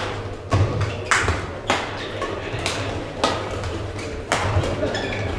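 Badminton rackets striking a shuttlecock in a rally, a run of sharp cracks about half a second to a second apart, echoing in a sports hall.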